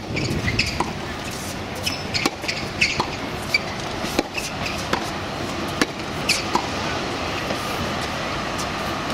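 Tennis balls struck back and forth with rackets on a hard court: sharp pops of strings and bounces about once or twice a second, thinning out about two-thirds of the way through. Under them runs a steady murmur of crowd chatter.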